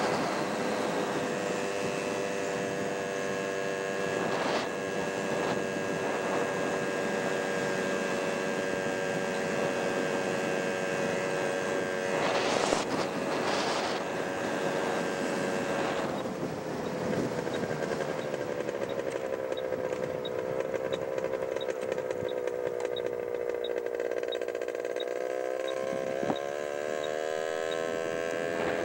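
Motorcycle engine heard from the rider's helmet, running steadily at cruising speed under wind noise. Its pitch falls as it slows about two-thirds of the way through, then climbs again near the end. Two brief loud rushes of noise come about twelve and fourteen seconds in.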